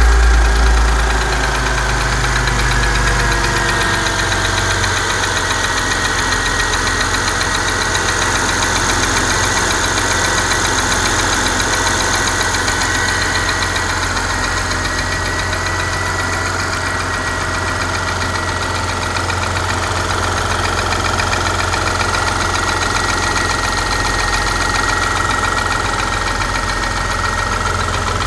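Porsche Panamera 4S engine idling, with a fast, even ticking running through it that the owner is asking about. The low rumble drops in the first few seconds and then holds steady.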